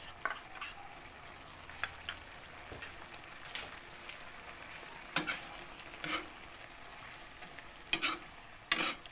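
Metal ladle stirring chop suey vegetables in a wok of simmering, cornstarch-thickened sauce: scattered scrapes and knocks of the ladle against the pan, loudest near the end, over a steady low sizzle.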